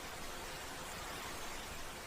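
Steady, even hiss of a calm ambience noise track, unchanging, with no distinct events.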